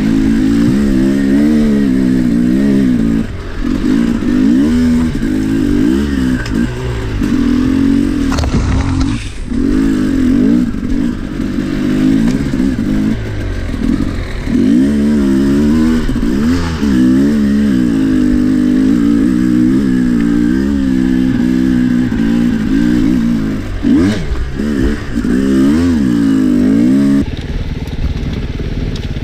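Two-stroke engine of a Sherco 300 SE enduro dirt bike riding a trail, the revs rising and falling continually with throttle on and off, with brief drops as the rider backs off.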